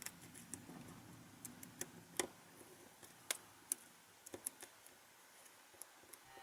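Faint, scattered light clicks and ticks of small phone parts being handled while the display's flex cable is fitted into its guide inside the phone, about a dozen irregular clicks with a small cluster a little past the middle.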